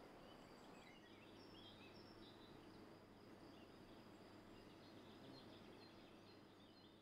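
Faint outdoor ambience with small birds chirping over and over, fading out near the end.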